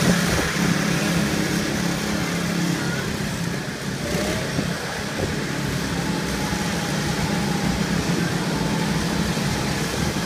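Small petrol go-kart engines running as several karts lap the track, a steady drone that eases briefly about four seconds in.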